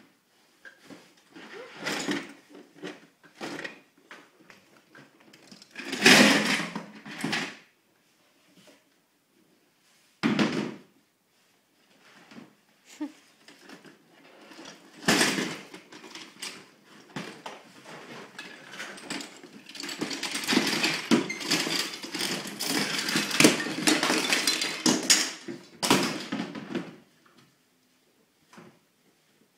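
Plastic toys clattering and rattling into plastic storage bins, first in a few separate bursts and then in a longer, dense rattle near the end.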